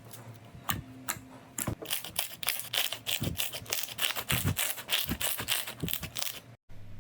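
Slime being pressed and squeezed, giving sharp, crisp clicks: a few spaced ones at first, then a quick run of crackling pops, several a second, that cuts off suddenly near the end.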